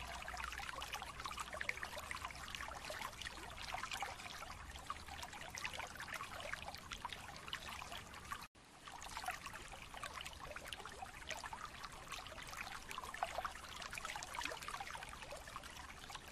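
Steady trickling, crackling sound like running water, full of small clicks. It breaks off for an instant about eight and a half seconds in and carries straight on.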